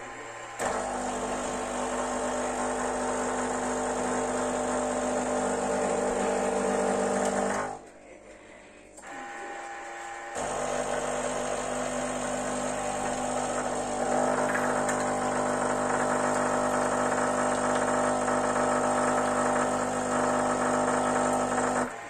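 Krups EA81 bean-to-cup espresso machine making a coffee. Its grinder runs for about seven seconds and stops. After a short pause the pump runs steadily for about eleven seconds as the coffee brews into the cup.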